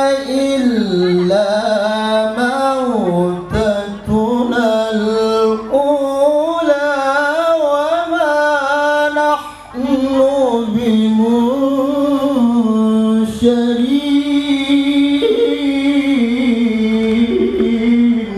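An adult male qari reciting the Qur'an in the melodic tilawah style into a microphone: long, ornamented phrases whose pitch winds up and down, with a short breath about ten seconds in before the next phrase.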